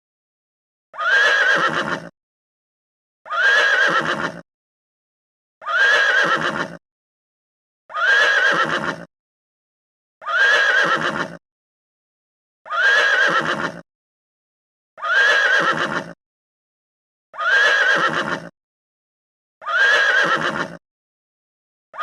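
Horse whinnying, the same whinny played over and over: each call lasts about a second, its pitch rising then falling, and it repeats about every two and a half seconds with silence between.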